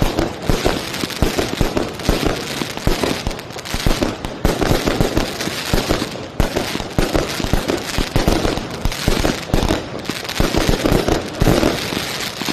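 Fireworks launched from street level, shells bursting overhead in a rapid, unbroken run of bangs and crackling.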